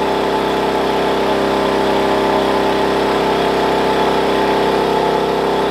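Wen 56203i 2000-watt inverter generator running at a steady speed with eco mode off, loaded by a 13,500 BTU portable air conditioner whose compressor and fan run alongside it.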